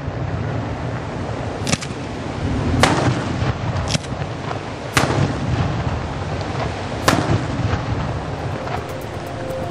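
Aerial firework shells bursting in a night display: about five sharp bangs roughly a second apart, the loudest two about halfway through and near seven seconds in, over a steady low rumble.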